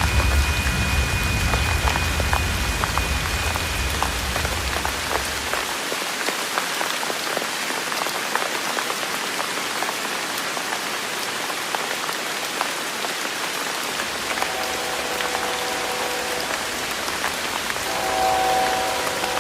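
Steady rain with scattered drop ticks, and a low rumble underneath that dies away about six seconds in. A distant train horn sounds its multi-note chord about fifteen seconds in, then again more strongly near the end.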